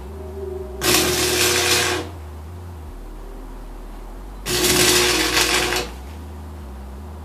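Stick welder with 6011 rod striking two short tack welds, each arc a loud crackling sizzle of a little over a second, the first about a second in and the second about halfway through.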